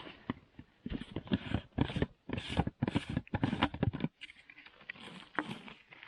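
Food and plastic bags being handled out of a bear canister: a quick run of rustling, scraping scuffs from about a second in, stopping about four seconds in, then a few softer ones.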